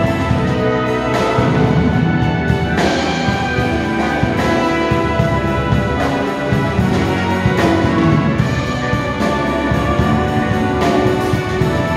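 Military brass band playing live with a drum kit: sustained brass chords over a steady drum beat.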